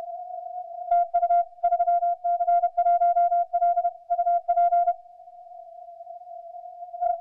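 Morse code from a ham radio transceiver on 40 m CW: a single beep tone sends a burst of dots and dashes from about one second to five seconds in. Around it a steady, fainter tone at the same pitch, with one short beep near the end.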